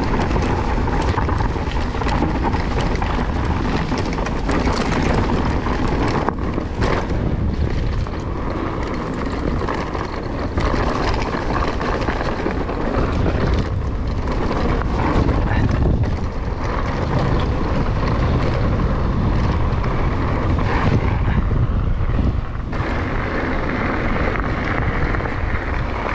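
Wind buffeting the microphone of a camera on a moving mountain bike, over the rolling of its tyres on a dirt and gravel trail, with occasional knocks and rattles from the bike.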